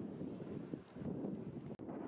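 Wind buffeting the camera microphone as a rough, uneven rumble, cutting out briefly near the end.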